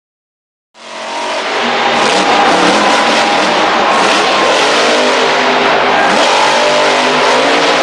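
Monster truck's supercharged V8 engine revving hard, with its pitch rising and falling. It cuts in suddenly about a second in and stays loud.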